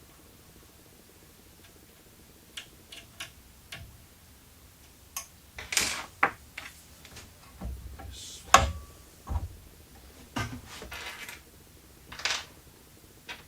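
Small metal hardware and tools being handled: scattered light clicks and clinks starting a few seconds in, turning into busier clattering with a sharper knock around the middle.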